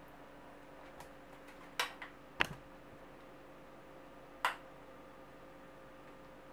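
A spoon clinking against a ceramic bowl as sour cream sauce is scooped out: a handful of sharp clinks, clustered about two seconds in with the loudest just after, and one more about four and a half seconds in.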